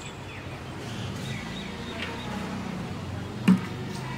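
A single sharp knock about three and a half seconds in, a plastic oil bottle set down on a brick floor, over a quiet background with a few faint bird chirps.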